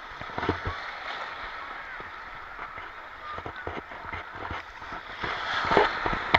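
Shallow seawater sloshing and splashing around legs as people wade through it, with a steady hiss of water in the background; the splashes come irregularly and grow busier near the end.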